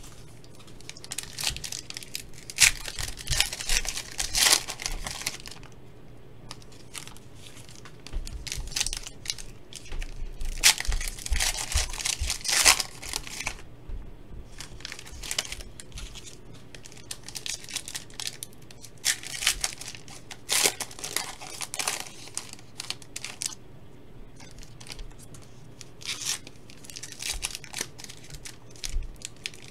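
Foil trading-card packs being torn open and crinkled by hand, in four spells of tearing and crackling with quieter gaps between.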